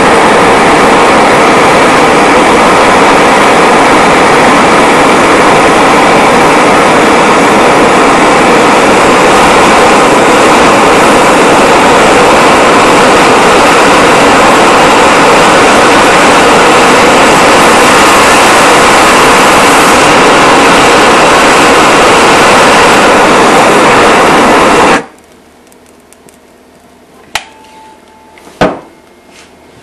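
Handheld MAPP-gas torch burning with a loud, steady rushing hiss while brazing a metal part with brass rod. The flame cuts off suddenly about 25 seconds in, followed by two sharp knocks.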